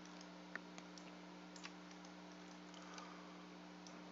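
Faint scattered clicks of a computer mouse, a handful of short separate ticks with the loudest about half a second in, over a steady low hum.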